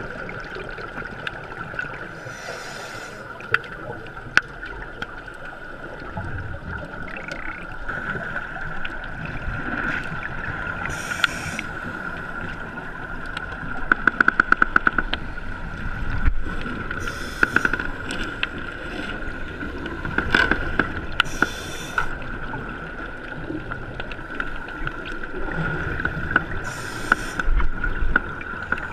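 Muffled underwater sound heard through a camera's waterproof housing: a scuba regulator's exhaled bubbles hiss and gurgle out in short bursts every few seconds over a steady high hum, with a quick rattle of clicks about halfway through.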